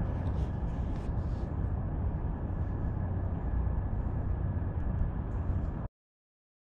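Steady engine rumble with a thin, steady high whine above it, cutting off suddenly near the end.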